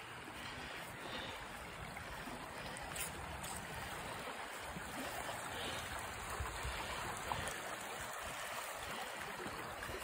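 Shallow river flowing over stones: a steady rush of running water.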